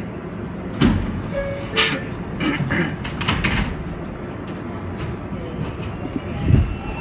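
Steady low rumble inside an R142A subway car, with several sharp clicks and knocks in the first half and a heavier low thump near the end.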